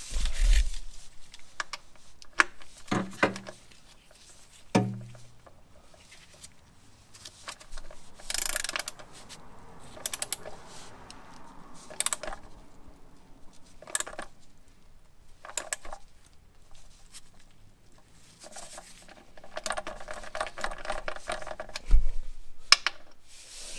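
Irregular metallic clicks and clinks of hand tools (ratchet, extensions and hex socket) being handled and fitted to the oil drain plug on the underside of the engine, with a heavier knock a little before the end.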